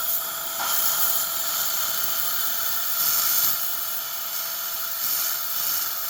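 Dental implant surgical motor spinning a long, thin lance drill: a steady, even whine over a constant hiss.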